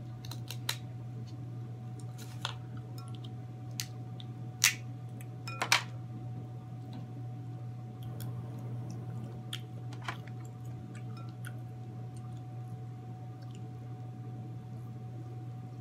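Crab leg shells being cracked and snapped apart by hand: a scattering of sharp cracks, loudest about five and six seconds in, over a steady low hum.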